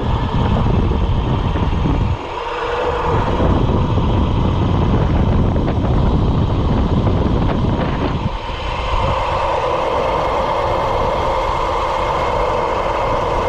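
Wind buffeting the microphone of a camera on a moving electric fat-tyre bike, mixed with tyre and road noise. The low buffeting eases about eight seconds in, leaving a steadier hum.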